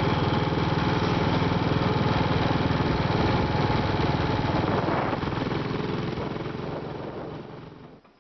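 Royal Enfield single-cylinder motorcycle engine running at a steady road speed, with a fast, even firing pulse. It fades out over the last few seconds.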